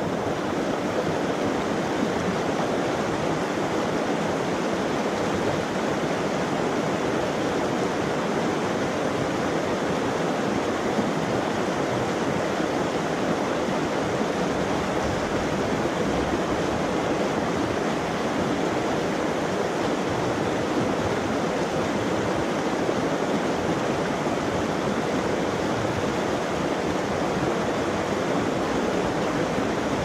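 Steady rush of a mountain creek flowing over a small waterfall.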